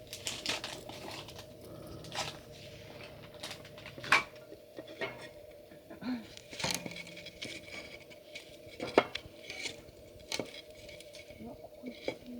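Scattered clinks and knocks of small hard objects being handled, the sharpest about four seconds in and again near nine seconds, over a faint steady hum.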